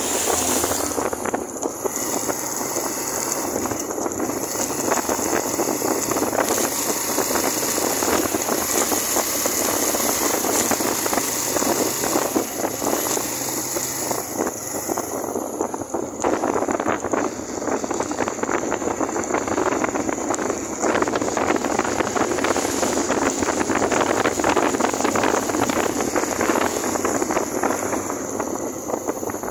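Suzuki GN125's single-cylinder four-stroke engine running while riding at road speed, largely covered by wind rushing and buffeting over the microphone.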